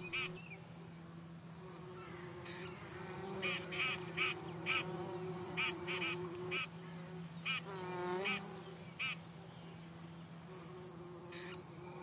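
A steady, high-pitched insect trill continues throughout. Short bird call notes are scattered over it, with a gliding call about eight seconds in.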